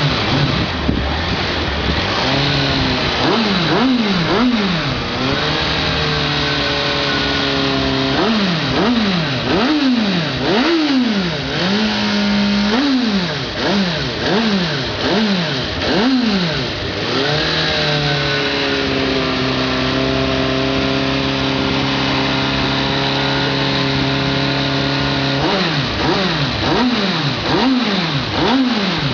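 Suzuki Bandit 650 inline-four engine breathing through a Roncar Coyote 2 Way aftermarket exhaust, blipped over and over: each blip is a quick, sharp rise in revs that drops straight back to idle. About halfway through it falls slowly from a higher rev and idles steadily for several seconds, then the blips start again near the end.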